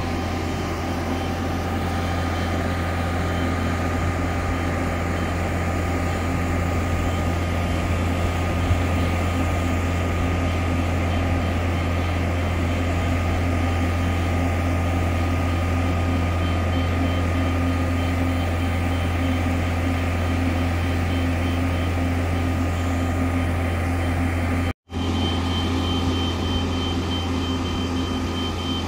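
Self-propelled modular transporter's engine running steadily under load as it carries a yacht hull: a low drone with a few constant higher tones. The sound cuts out for a split second about 25 seconds in.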